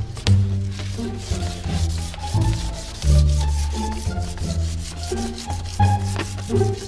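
Fine 2000-grit sandpaper rubbed back and forth by hand over a plastic car headlight lens, a rough repeated scratching as the lens surface is sanded down for restoration. Background music with a bass line plays underneath.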